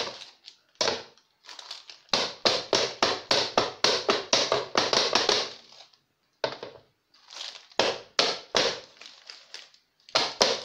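Metal baking tray of genoise sponge batter rapped repeatedly on a granite countertop, a fast run of knocks about four a second, a short pause, then more uneven knocks. The rapping levels the batter in the tray before baking.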